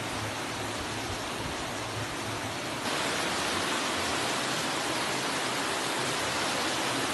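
Steady rushing of water from heavy rain and flooding. It gets abruptly louder about three seconds in.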